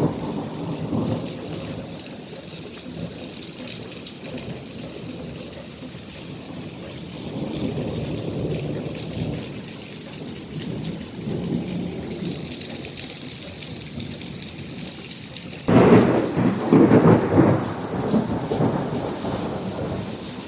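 Heavy rain falling steadily through a thunderstorm, with low rolling thunder, then a sudden loud thunderclap about three-quarters of the way through that rumbles on for a couple of seconds.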